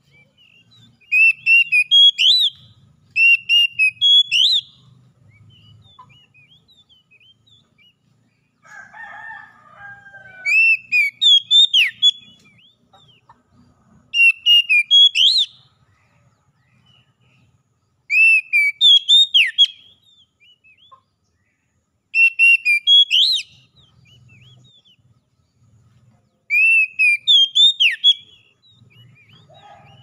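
Oriental magpie-robin singing: seven short phrases of clear, sweet whistled notes, each about a second and a half long and a few seconds apart. A fainter, lower call comes about nine seconds in.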